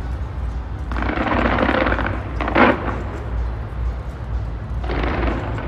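Fireworks going off: a steady low rumble of bursts, with spells of crackling and one sharp bang about two and a half seconds in.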